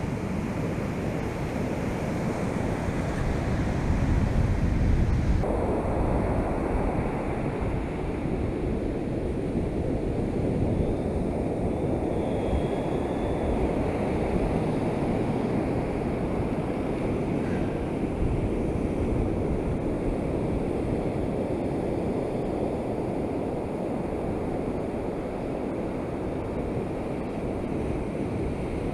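Heavy surf breaking and washing up the beach in a steady wash of noise, with wind buffeting the microphone.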